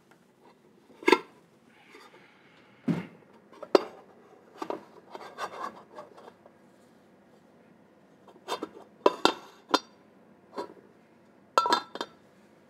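White ceramic plates, warmed in the oven, clinking and knocking as they are handled and set down on the countertop: about a dozen sharp clinks, bunched around the first six seconds and again from about eight seconds on, with one duller thump about three seconds in.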